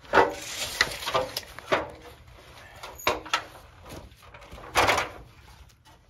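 Aluminium stepladder being climbed down and shifted by hand, clanking and knocking in an irregular run of sharp knocks and rattles, with loud ones right at the start and about five seconds in.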